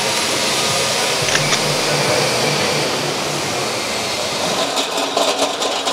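Steady, loud rushing noise of machinery in an aluminium fabrication hall, with a faint low hum under it and a quick patter of clicks near the end.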